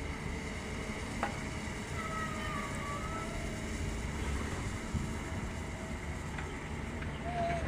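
Long-boom excavator's diesel engine running steadily: a low rumble, with a single sharp click about a second in and a few faint high squeaks.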